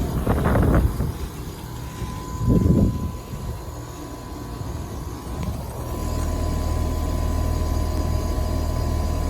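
2018 Heil Quiet Comfort communicating heat pump running in heat mode: a steady low compressor-and-fan hum with a faint steady high whine. Two brief louder noises come in the first three seconds, and the low hum grows stronger about six seconds in.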